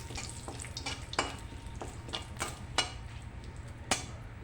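A metal spatula stirring and knocking in a pan of hot oil, with irregular sharp clinks over a faint sizzle. The oil is tempering with two bay leaves.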